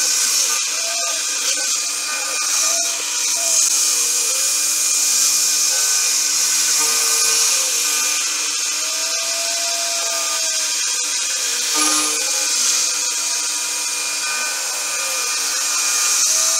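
Homemade CNC milling machine cutting a small wheel-rim part with a 4 mm end mill: a steady high cutting hiss and spindle whine, with tones that rise and fall every few seconds as the machine moves.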